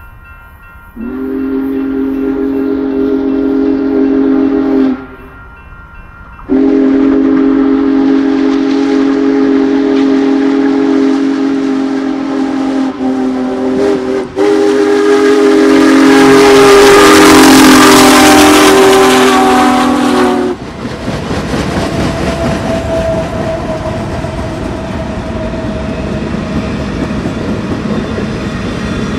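Union Pacific Big Boy 4014's deep, chord-like steam whistle blown twice: a blast of about four seconds, then a long one of about fourteen seconds. The noise of the passing train swells under the long blast. When the whistle stops, the train's rolling noise and wheel clatter carry on.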